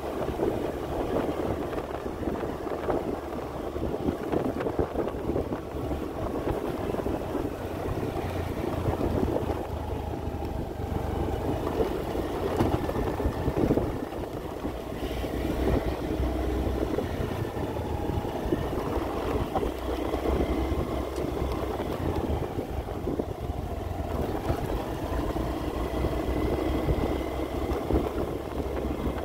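A vehicle's engine running steadily while travelling along a road, with road and wind noise mixed in.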